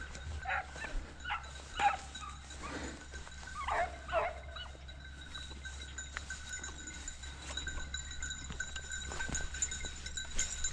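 Hunting dog barking and yelping in a quick run of calls over the first four seconds or so, then a steady high ringing from about five seconds in.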